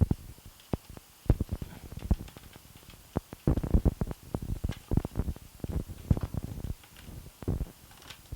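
Irregular plastic clicks and knocks of a lens hood being pushed onto a camcorder's lens and its locking ring twisted, handled close to the microphone, with busy clusters of clicks in the middle.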